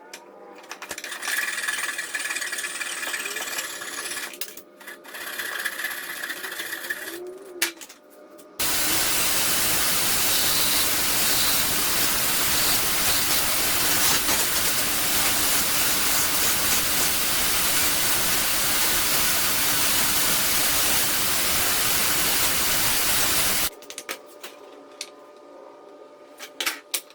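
A power tool running steadily and loudly for about fifteen seconds, starting and stopping abruptly, with quieter handling sounds before it and scattered clicks after.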